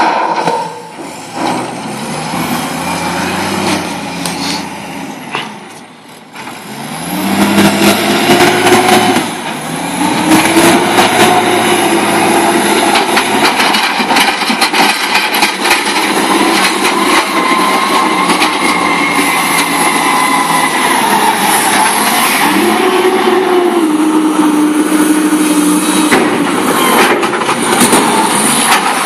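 Pettibone Cary-Lift rough-terrain forklift's engine running hard under load. It revs up sharply twice, about seven seconds in and again near the end, and holds high revs in between. Scattered clanks and knocks sound over the engine.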